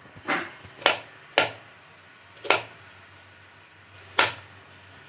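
Kitchen knife chopping boiled, peeled potatoes into small pieces on a plastic cutting board: five sharp knocks of the blade hitting the board, unevenly spaced.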